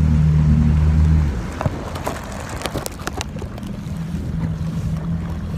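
Jet ski engine idling with a steady low hum that drops away about a second and a half in, leaving a quieter stretch with a few sharp clicks and knocks, and picks up again near the end.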